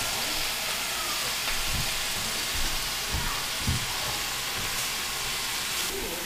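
Mixed kale, chard and leek greens sizzling steadily in a very hot pan of olive oil, the water clinging to the freshly washed leaves hissing as they wilt. A few low knocks sound about two and three seconds in.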